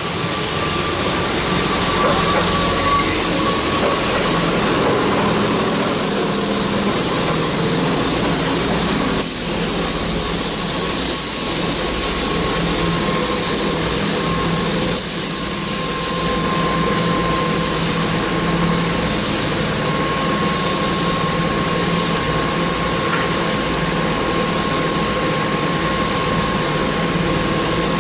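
Keihan electric commuter train rolling slowly along the platform and coming to a stand, with a steady high whine and a low hum from its onboard equipment.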